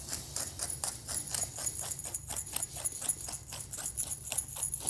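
Potato masher working boiled potatoes in a pot, a quick even rhythm of strokes, about five a second.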